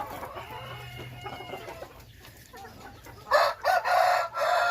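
Hmong fibro rooster crowing loudly about three seconds in, one long call broken into several pieces, over softer clucking from the flock.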